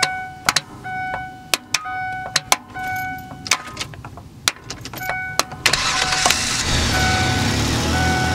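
A hammer knocking repeatedly on a pickup truck's starter motor while the key is held to start, then about five and a half seconds in the engine cranks, catches and runs steadily. The hammer blows get a starter to engage that is failing.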